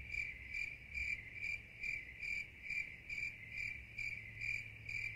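A cricket chirping steadily, one high trill that swells about twice a second, over a faint low hum. It cuts off suddenly at the end.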